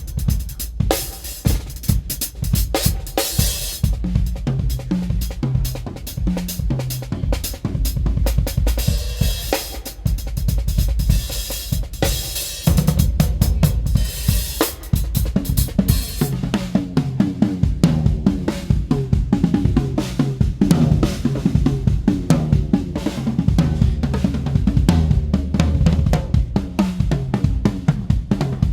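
Drum kit solo on SJC acrylic drums with Evans Hydraulic tom heads: fast snare, kick and tom hits under crashing cymbals and hi-hat. About 16 seconds in the cymbals drop back and the playing moves to busy, pitched tom fills.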